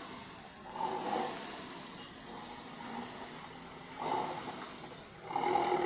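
Petrol car's aftermarket 'suos' exhaust at idle giving a wet, snoring burble ('ngorok basah'), swelling louder about a second in, around four seconds, and again near the end.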